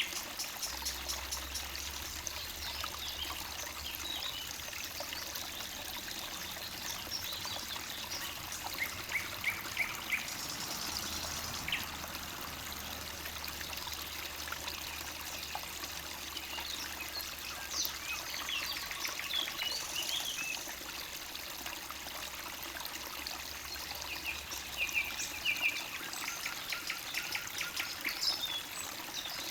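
Forest stream trickling and babbling steadily, with small songbirds chirping and trilling on and off over it.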